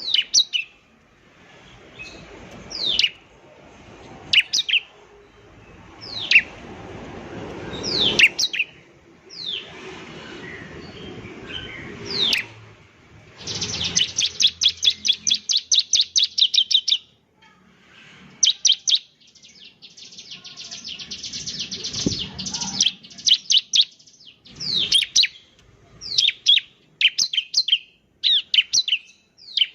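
Bar-winged prinia (ciblek) singing: a series of sharp, high notes that sweep down in pitch, broken in the middle by two fast rattling trills of rapidly repeated notes.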